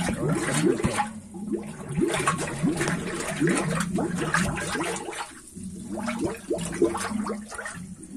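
Water gurgling and bubbling in the open expansion tank of a water radiator heating system as the system fills, with dense bubbling over a steady low hum. The bubbling eases briefly a few times.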